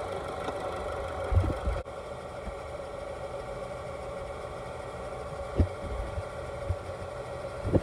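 A 2004 Honda Civic Si's four-cylinder engine idling steadily while coolant is drawn into the radiator, with a few brief low thumps.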